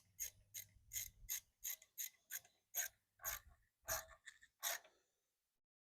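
Hand ratchet clicking in short strokes, about a dozen clicks at two to three a second, stopping about five seconds in, as the mounting bolts of a new ignition coil are snugged down against a cardstock spacer on the mower engine's flywheel magnet.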